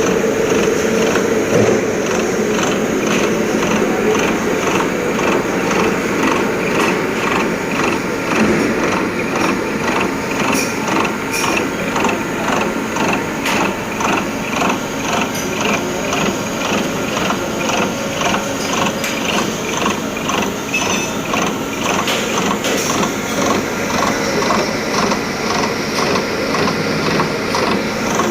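CNC milling machine running, its spindle and cutter machining a die with a steady mechanical whir and a regular tapping rhythm of about two strokes a second.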